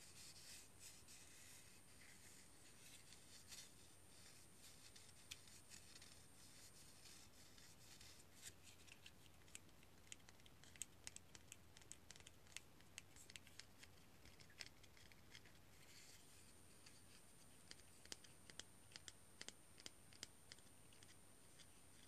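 Fingers and fingernails scratching and tapping on a dry cinnamon stick: faint scraping with many small, crisp clicks, coming thick from about eight seconds in.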